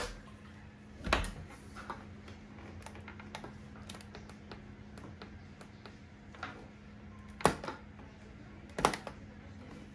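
Dishes and trays being handled in a dishwasher: sharp knocks about a second in and twice near the end, with lighter clicks between, over a steady low hum.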